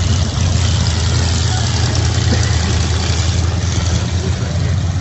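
Demolition derby stock cars' engines running together in a loud, steady low rumble.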